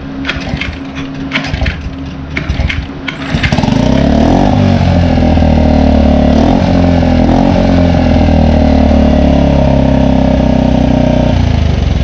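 Small Mercury four-stroke outboard engine, cowling off, pull-started with its recoil cord on a newly fitted replacement carburetor. A few quick pulls in the first three seconds or so, then it catches about three and a half seconds in and runs steadily until the sound cuts off near the end.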